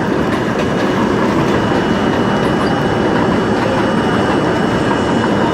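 Steady running noise of an R32 subway car heard from inside the car as the train moves along the track, wheels on rail.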